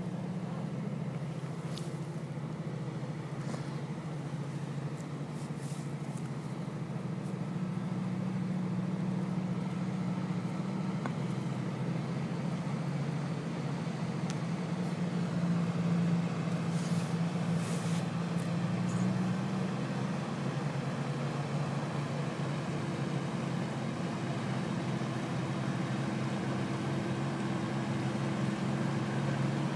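Steady running of a truck engine towing a line of four-wheelers through deep floodwater. Its pitch steps down about two-thirds of the way through.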